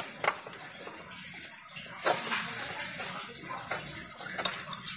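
Hands handling wires and a circuit board on a workbench: a few sharp clicks, with a rustling hiss about two seconds in.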